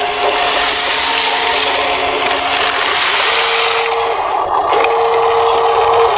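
Huina radio-controlled toy dump truck raising its tipper bed: the small electric lift motor whines steadily while the load of stones rattles and slides, the whine dropping out briefly twice.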